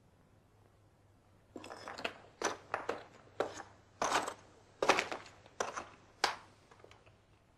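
Footsteps on rubble: about nine uneven steps, starting about a second and a half in and stopping shortly before the end.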